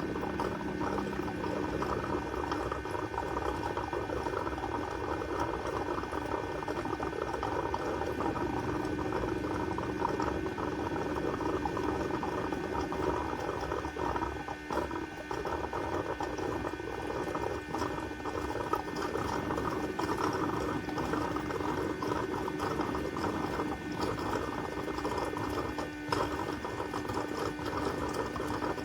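eufy Omni C20 base station washing the robot's mop pads: a steady motor hum with water churning underneath.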